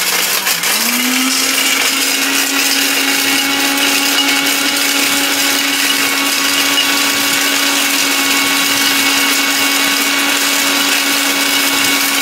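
A 1200-watt Novena Blackberry electric blender running loud and steady while it grinds whole cinnamon sticks to powder in its steel jar. About half a second in, the motor's pitch steps up, then holds level.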